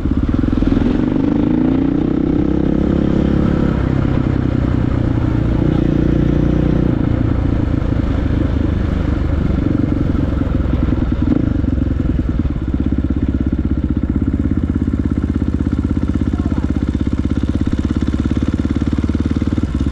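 Dirt bike engine running as it is ridden. The revs rise and fall over the first few seconds, then settle into a steady, evenly pulsing low-speed note for the second half.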